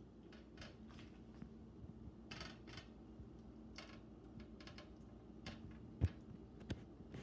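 Silicone spatula stirring shrimp in a skillet: scattered soft scrapes and taps against the pan, with two sharper knocks about six seconds in.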